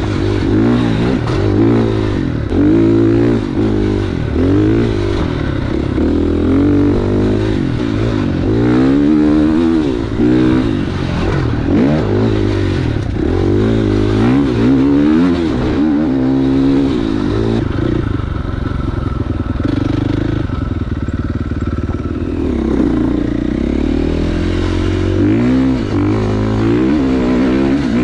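Husqvarna FX 450 dirt bike's single-cylinder four-stroke engine, revving up and down over and over as the throttle is worked on a trail ride. It holds a steadier, lower note for a few seconds past the middle, then starts revving again.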